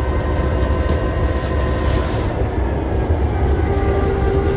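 Diesel locomotive running, heard inside its cab: a steady low rumble, with a brief steady tone about four seconds in.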